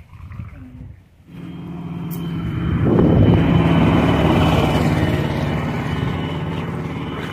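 A motor vehicle's engine running nearby. It comes in about a second in, grows louder over the next two seconds as a steady hum with a held pitch, then holds and slowly fades.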